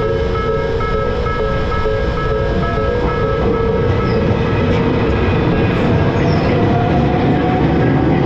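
Japanese railroad-crossing alarm bell ringing its repeated "kan-kan" tone as a train passes. The train's rumble of wheels on rails grows and covers the bell from about halfway through, with a rising whine near the end.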